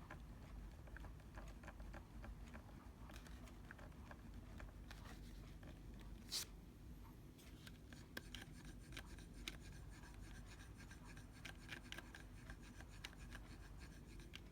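Faint, irregular clicking of Logitech computer mouse buttons being pressed one after another, with one louder click about six seconds in and a quicker run of clicks in the second half.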